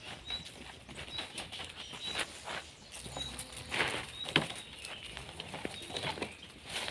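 Leaves rustling and crackling with scattered sharp clicks and knocks as a plastic crate of leaves is tipped out, the loudest click about four seconds in. A small bird repeats a short high chirp about once a second.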